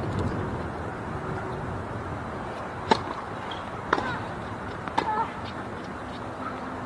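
Tennis ball struck by rackets three times, about a second apart, in a serve-and-rally exchange. Steady outdoor background noise underneath.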